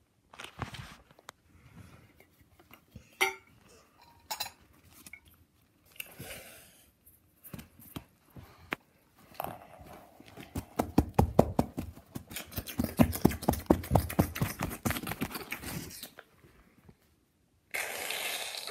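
Small toy metal pots, lids and utensils clattering and scraping, with a fast run of clinks lasting about six seconds in the middle as the metal is rapidly struck or rattled. A short breathy hiss comes near the end.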